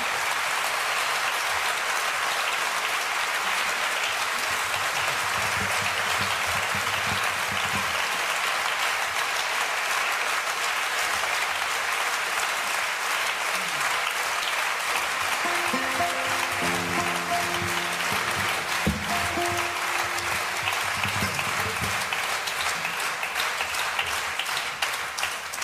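Audience applauding steadily, with a few faint instrument notes under it; the applause fades out near the end.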